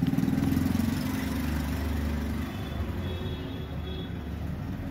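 Steady low rumble of an idling engine in the background, easing off a little about halfway through.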